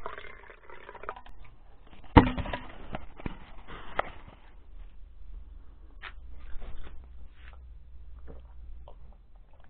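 Tea being poured into a glass mug, the pour tailing off about a second in. About two seconds in comes one loud sharp knock of the glass mug, followed by scattered light clicks and small sips as it is drunk.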